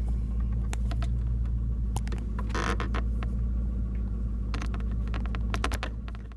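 Steady low hum of the car running, heard inside the cabin, with scattered light plastic clicks and a brief scrape about two and a half seconds in as the Lightning-to-30-pin adapter and cable are handled; the sound cuts off abruptly at the end.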